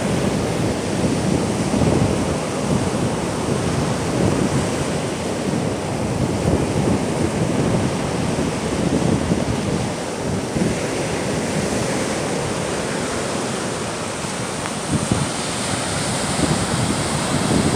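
Baltic Sea storm surf: waves breaking and washing up the beach in a continuous, surging rush, with wind buffeting the microphone.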